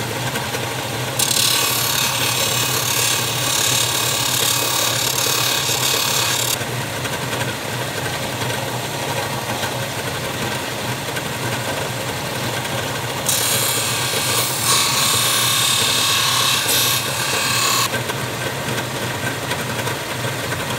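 Combination belt-and-disc sander running with a steady motor hum. Twice, for about five seconds each, a small plastic furniture glide is pressed against the sanding disc, giving a harsh, high rasping hiss as its sides are tapered down.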